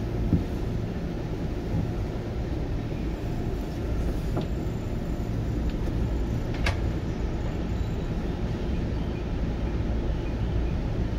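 Steady low rumble inside a 209-series electric train car standing still, with no traction-motor whine, the hum of its on-board equipment while it waits to depart. A single sharp click comes a little past halfway.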